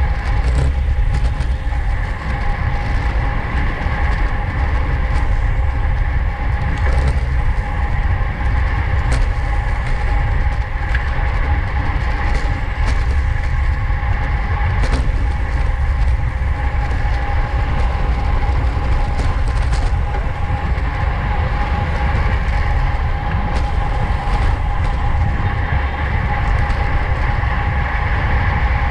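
Wind rushing over the microphone of a camera riding on a road bicycle at race speed: a loud, steady low rumble, with a steady high hum and scattered light clicks on top.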